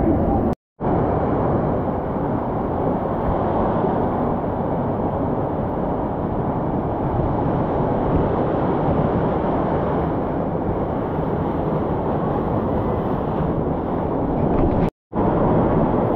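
Mountain torrent rushing through a canyon: a steady, loud wash of white water, cut off twice briefly, about half a second in and near the end.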